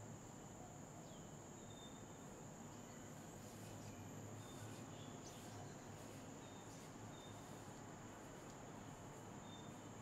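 Faint steady high-pitched insect drone, cricket-like, with a few short high chirps over it.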